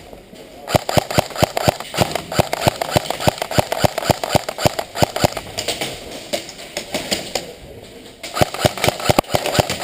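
Quick running footsteps, about four to five steps a second, in two runs with a pause of about two seconds between them.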